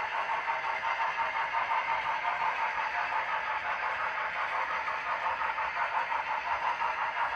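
Sound-equipped HO scale model locomotives running, their onboard speakers playing locomotive sound with a fast, even pulsing that holds steady throughout.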